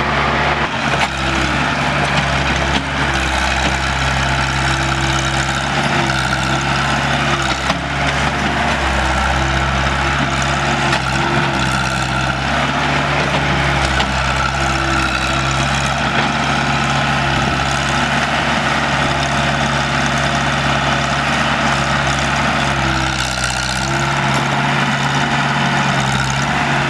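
Crawler excavator's diesel engine running steadily as it digs and swings sand, with a higher tone that comes and goes over the engine as the arm works.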